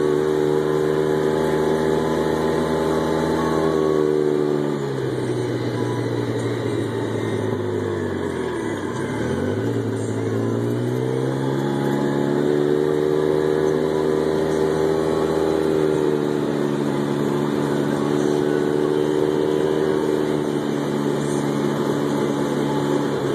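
Polaris RZR side-by-side's engine running while the RZR drives on a gravel road. Its pitch drops steadily for several seconds as it slows, then climbs back and holds fairly steady.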